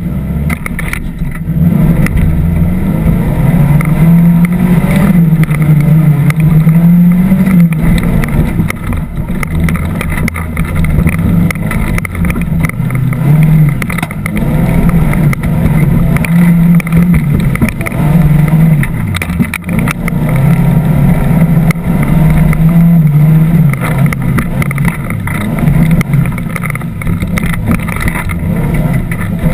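Off-road competition vehicle's engine heard from on board, loud and revving up and down repeatedly as it drives over a sandy course, easing off briefly about two-thirds of the way through.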